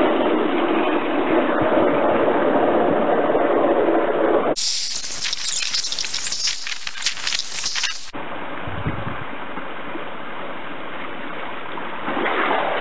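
Water jet from an 18 mm nozzle on a pipe, spraying and splashing onto the stream bed and into a plastic tub during a flow test. Steady rushing noise that changes sharply about four and a half and eight seconds in.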